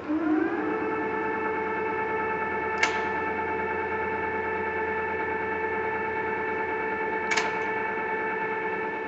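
TOS SN71C engine lathe starting up under its 11 hp motor: the drive rises to speed in about half a second, then runs with a steady whine of several tones. Two sharp clicks come about three and seven seconds in.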